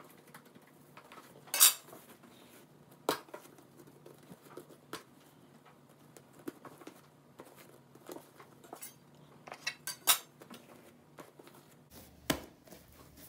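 Metal kitchen utensils clinking on a stone countertop a few times, sharpest about one and a half seconds in and again around ten seconds, with soft small sounds of dough being cut and handled between them.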